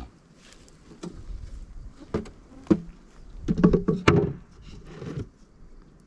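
Wooden knocks and bumps from a beehive box being handled, its lid shifted. A few single knocks, then a cluster of sharp knocks about three and a half to four seconds in.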